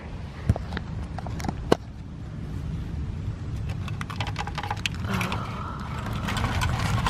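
Clear plastic clamshell container being handled and snapped open, giving sharp clicks and plastic crackling about four to six seconds in, over a steady low rumble of wind on the microphone.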